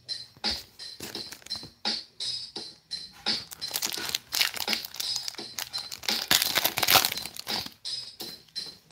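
Plastic foil trading-card pack wrappers crinkling and rustling as they are torn open and handled, thickest about four to seven seconds in, over background music.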